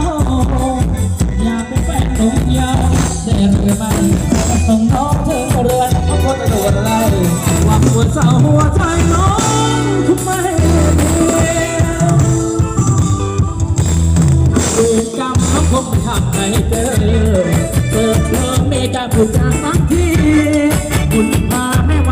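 Thai ramwong dance music played by a live band, with a singer's voice over it.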